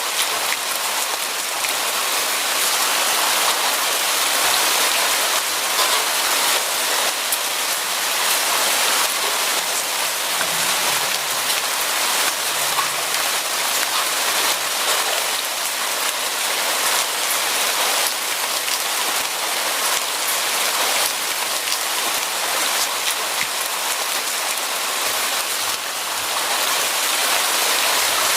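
Steady rain falling, an even hiss of many drops with faint individual drop ticks on a surface.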